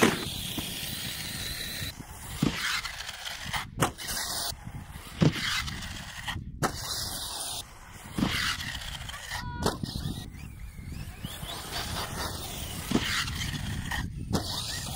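Electric RC monster trucks (Traxxas X-Maxx) running on grass, their motors whining up and down in pitch as they accelerate and flip. Several sharp thuds as they land.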